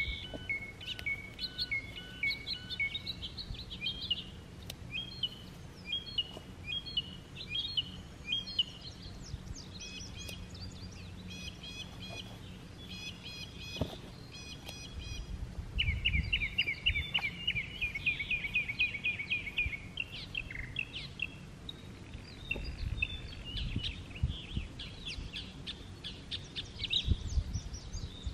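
Several songbirds singing and calling at once in overlapping chirps and whistles, with a fast, even trill from one bird about halfway through.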